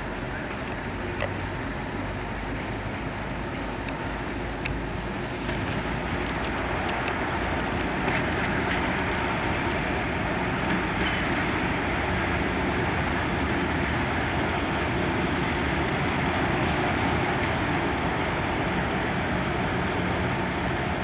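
Class 50 diesel locomotive's English Electric 16-cylinder engine running as it draws a passenger train into the platform, growing louder as it approaches.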